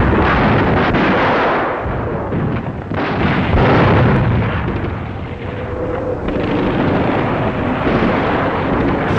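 Continuous din of artillery fire and explosions, louder about three to four seconds in.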